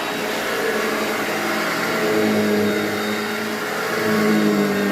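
Old Hoover vacuum cleaner running steadily on a newly changed setting: a motor hum over a hiss of suction. The hum grows stronger and wavers slightly in pitch from about two seconds in.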